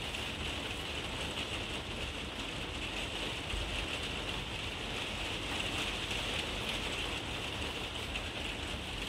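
Rain lashing down on a carport roof: a steady hiss.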